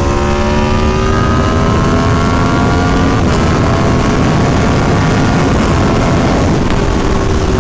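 Aprilia Tuono 1100 Factory's V4 engine running through a LeoVince LV10 Shorty exhaust, its pitch climbing slowly under acceleration for about three seconds. Then a steady rushing noise covers it, and the engine comes back lower near the end.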